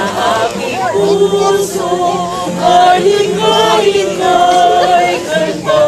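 A mixed group of men and women singing a song together, with long held notes over a steady low accompaniment.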